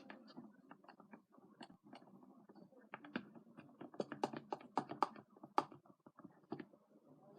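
Glitter glue being stirred in a bowl for slime: irregular clicks and taps of the mixing utensil against the bowl, quickest and loudest in the middle of the stretch.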